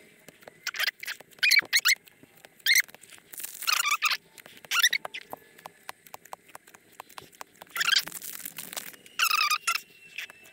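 1991 Pacific football cards being slid off a stack one by one, each slide making a short, squeaky scrape of card on card, with a run of light ticks about halfway through.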